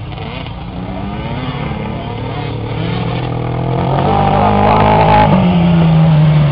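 Tuned Piaggio Ape three-wheeler engines revving hard, a buzzing engine note that climbs in pitch and grows louder from about four seconds in as one comes close, then eases slightly at the end.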